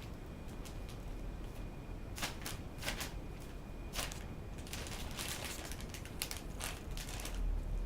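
Irregular light clicks and short scratchy rustles of a kitten moving about and clawing in a cheap cat basket, over a steady low hum.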